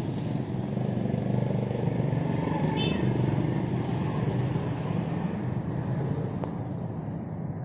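Steady street traffic noise, a continuous low rumble of passing vehicles.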